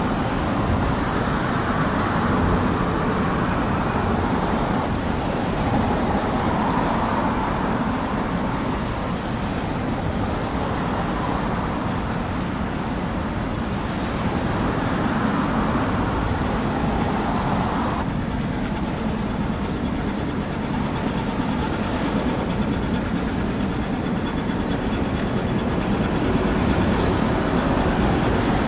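Steady low rumble of outdoor traffic noise, swelling a few times as if vehicles were passing.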